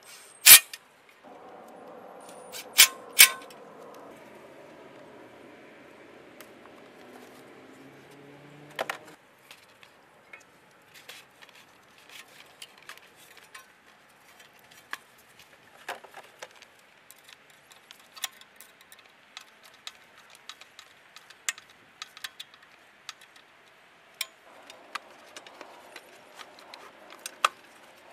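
Hand work on a car's cold air intake: scattered clicks and clinks of metal and plastic parts and tools being handled and fitted. A few sharp knocks come in the first three seconds, and a steady hum runs for several seconds early on, dropping in pitch just before it stops.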